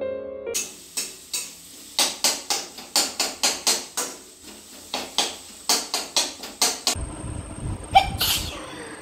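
A metal spatula clanking and scraping against a steel kadhai (wok) while food is stirred, a few sharp knocks a second. About two seconds before the end it gives way to a hissier background, with one loud short sound near the end.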